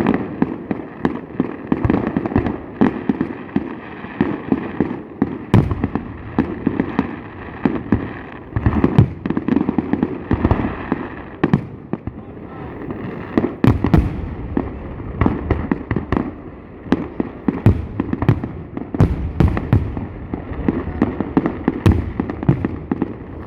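Aerial fireworks going off in quick succession: a dense, irregular string of sharp bangs and pops over a constant low rumble of further explosions.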